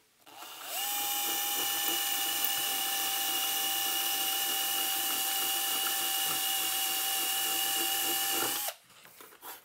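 Handheld electric drill spinning up, running at a steady whine for about eight seconds, then stopping. The bit is worked sideways to open a misdrilled hole in a metal amplifier chassis into a slot.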